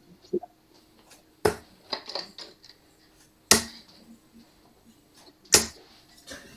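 Three darts striking a Winmau bristle dartboard, one sharp thud about every two seconds.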